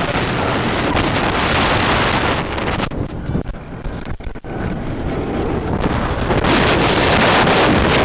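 Wind rushing over the microphone on a flying roller coaster at speed. The noise eases for about two seconds around the middle, then builds again to full strength.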